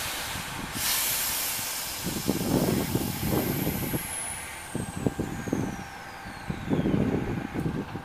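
Logging truck's air brakes releasing: a sudden loud hiss of air about a second in that fades over several seconds, with a thin whistle falling steadily in pitch, over uneven bursts of low engine rumble.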